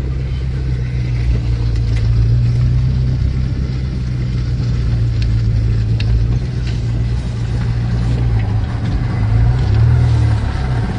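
Car engine and road noise heard from inside the cabin while driving: a steady low drone with a light hiss above it.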